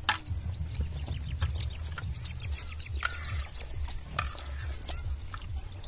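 Eating sounds at a table: a spoon scraping and clicking on plates and people chewing, a string of short clicks over a steady low rumble.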